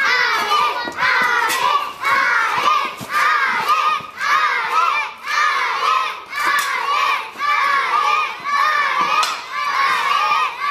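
A crowd of young children shouting and cheering together, rising and falling in rhythmic surges about once a second like a chant.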